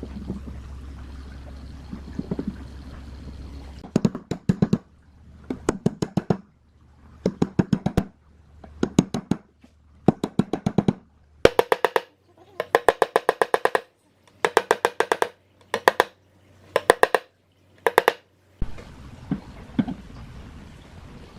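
Percussive music: short bursts of rapid wood-block-like drum rolls, one about every second, with dead silence between them. A steady low hum is heard before the bursts start and again after they stop.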